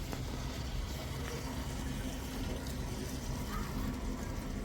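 Water rushing steadily over a low, even machine hum.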